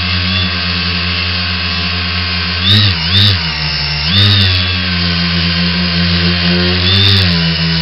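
Brushless motors and propellers of an X900 tricopter whining steadily in flight. The pitch and loudness swell briefly as the throttle changes: twice about three seconds in, again just past four seconds, and once more near seven seconds.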